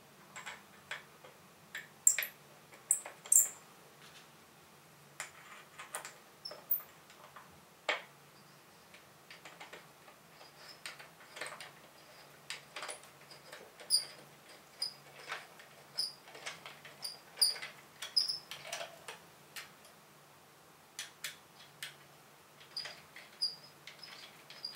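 Small screws and a hex key clicking and ticking against the telescope mount head as a tripod adapter is screwed on. The sharp clicks come at irregular moments, with runs of light, quick ticks as the screws are turned in the second half.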